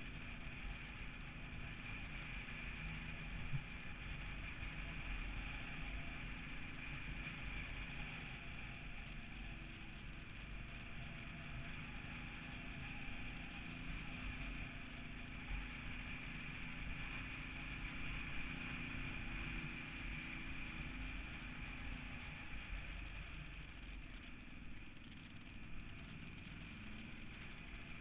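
Small motorcycle engine running steadily while riding, mixed with wind rush on the microphone and a steady high whine.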